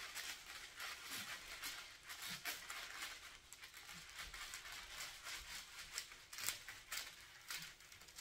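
Clear plastic top-cover film on a diamond painting canvas crinkling and rustling as it is pulled back and smoothed flat by hand, in quick, irregular crackles.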